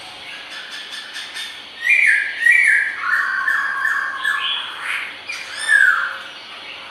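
Khướu mun laughingthrush singing: a few short, high clicky notes, then loud whistled phrases, including a run of level notes and a swooping note near the end.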